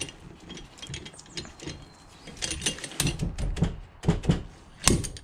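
Slide hammer on a blind bearing puller being worked up and down to pull a bearing out of an aluminium two-stroke crankcase half. It makes a run of sharp metal clanks and knocks, the heaviest ones in the last two seconds, as the bearing comes free.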